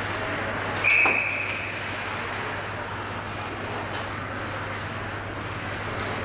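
One short, high-pitched blast of a hockey referee's whistle about a second in, stopping play, over the steady hum and noise of an indoor ice rink.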